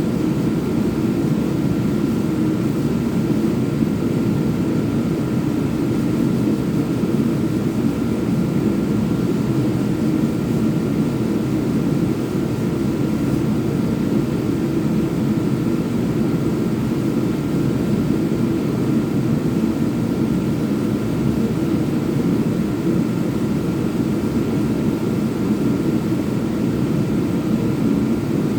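Power sander running steadily throughout: a continuous, even whirring noise without breaks, with a faint thin high tone running through it.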